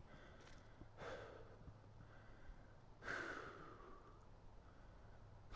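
A man's quiet breathing with two sighs: a short breath out about a second in and a longer, trailing sigh about three seconds in, as he catches his breath, exasperated.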